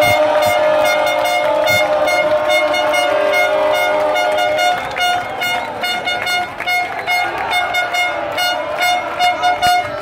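A horn sounds a long steady blast, then about halfway through changes to repeated short toots, over a noisy crowd.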